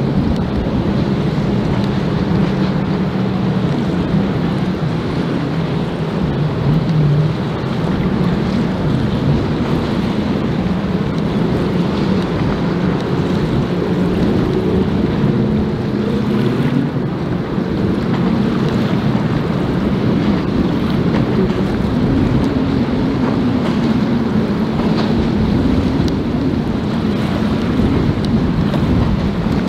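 Motorboat engines droning as boats run across choppy water, the pitch wandering up and down. Waves wash and wind buffets the microphone.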